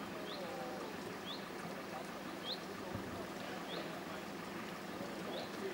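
Outdoor ambience: a steady background hum with a bird repeating a short, high chirp about once a second, and faint distant voices.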